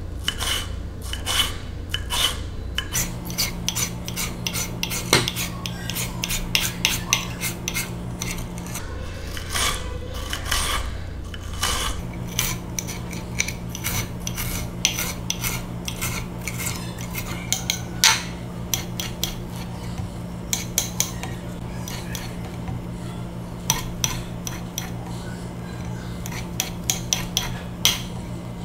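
Small kitchen knife cutting on a ceramic plate: quick, irregular taps of the blade against the plate as bell pepper is diced and mushrooms are sliced, over a low steady hum.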